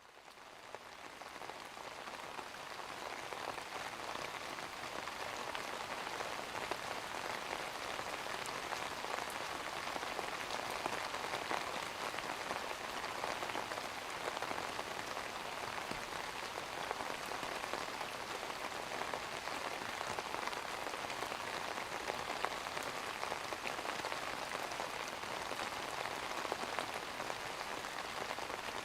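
Steady rain falling, a dense even patter with fine scattered drop ticks, fading in over the first few seconds and then holding steady.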